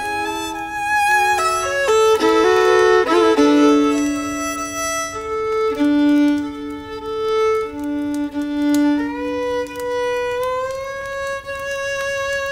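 Violin playing a tune, at times two notes at once. Quicker notes come in the first few seconds, then long held notes, with a slow slide up in pitch toward the end.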